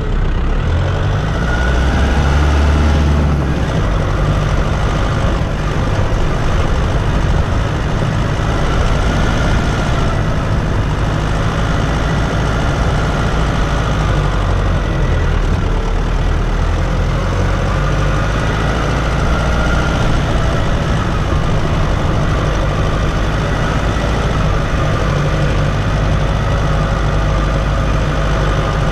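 Nissan Navara D22's 2.5-litre common-rail four-cylinder turbo-diesel engine running steadily as the ute drives through soft sand, heard from outside beside the front wheel. Its note rises and falls a little with the revs.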